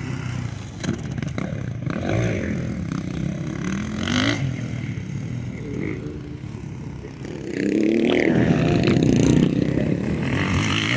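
Dirt bike engine revving up and easing off as it is ridden, the pitch climbing with each burst of throttle; it gets louder and closer about three-quarters of the way through.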